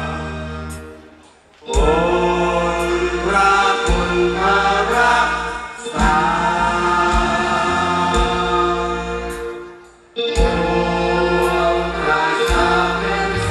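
A group of men singing a slow song together into microphones with musical accompaniment. The sound falls away briefly twice, about a second and a half in and just before ten seconds in, then comes back in full.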